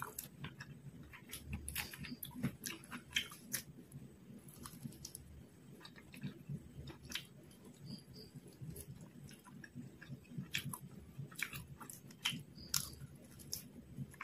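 Close-miked chewing and biting of fried quail, heard as a run of irregular sharp clicks.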